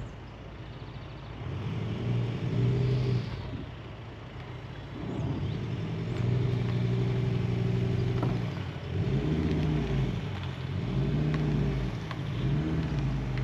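Caravan mover's electric motors driving the caravan over gravel in short runs. It is a low hum that starts and stops a few times and wavers up and down in pitch in the last few seconds.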